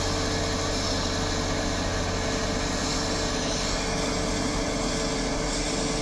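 Water pumping station running: a steady mechanical hum from the pumps under the even rush of water gushing out of an outlet pipe and splashing into the reservoir below.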